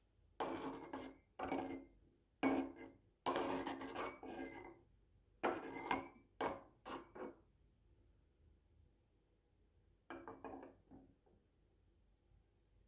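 A ceramic tea scoop rubs and scrapes against a clay kyusu teapot in a series of short strokes with a faint ring. About ten seconds in come a few light ceramic clinks as the lid is set on the pot.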